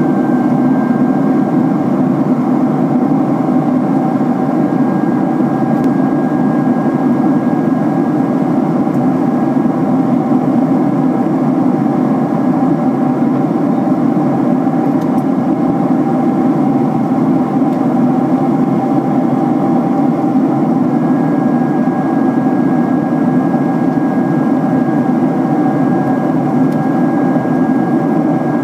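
Jet airliner cabin noise in cruise, heard at a window seat beside the engine: a steady, even rush with a low hum and a thin high whine. The whine fades out for several seconds in the middle and comes back later on.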